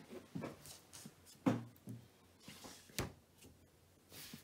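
Quiet handling sounds with a few faint low murmurs, and one sharp click about three seconds in.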